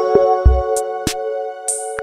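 Electronic background music: held synthesizer chords over drum-machine beats, with a deep drum hit about half a second in and a rising swish near the end before the music briefly drops out.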